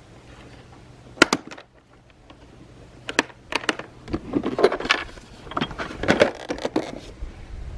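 Irregular sharp clicks and knocks of hard objects being handled, two loud ones about a second in and a busier run of clattering from about four seconds in.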